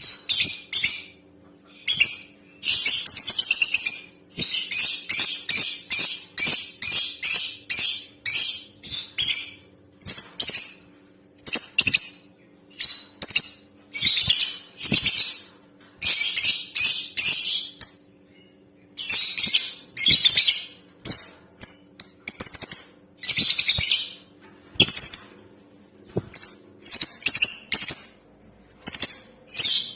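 Female lovebird calling: rapid runs of shrill, high chirps in bursts from a fraction of a second to about two seconds long, separated by short pauses. A faint steady hum runs underneath.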